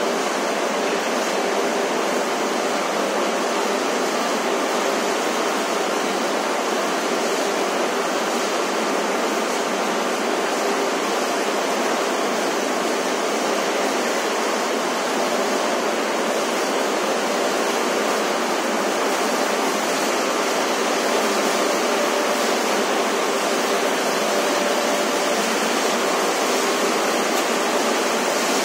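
Steady, even machinery noise of a municipal solid waste sorting line running, its conveyors and trommel drum screen giving an unbroken din with no separate knocks or clatters.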